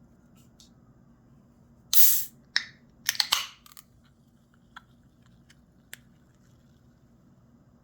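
Hands handling keyboard parts: a quick cluster of short scraping, crinkling noises about two to three and a half seconds in, then a few light clicks.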